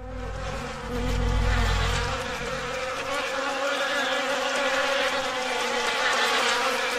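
Buzzing drone of a swarm of flying insects, many wings humming together at a steady pitch, with a low rumble under it that fades out about two seconds in.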